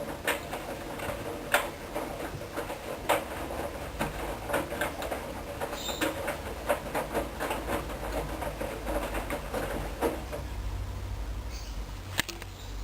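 Hoover Dynamic front-loading washing machine working through a wash: irregular clicks and patter of wet laundry and water tumbling in the turning drum. The clicks thin out about ten seconds in, over a steady low motor hum.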